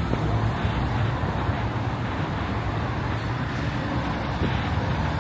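Steady hum of road traffic, with no single vehicle standing out.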